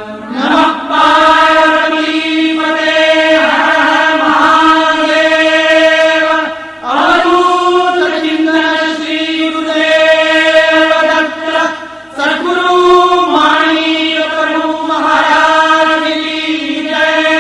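Devotional chanting: voices hold long, steady notes in three drawn-out phrases, each breaking off briefly before the next begins.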